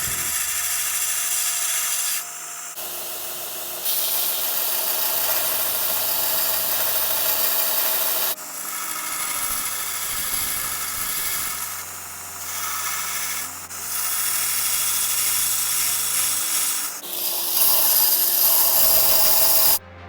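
Small Damascus stainless steel parts being ground to shape on a powered sander, a steady abrasive hiss over the motor's running tone. The sound changes abruptly several times, as separate stretches of grinding are cut together.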